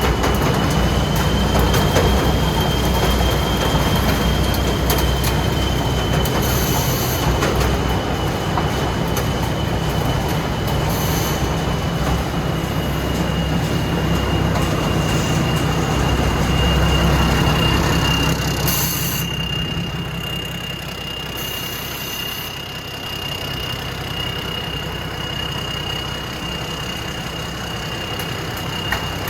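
Thai Seng Yont Thunder combine harvester running steadily, a deep engine rumble under a continuous high whine from the machinery. About two-thirds of the way through, the hissing part of the noise eases and it grows somewhat quieter.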